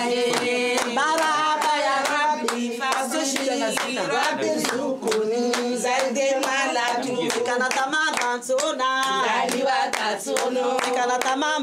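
A group of women singing a wedding song, with handclaps throughout.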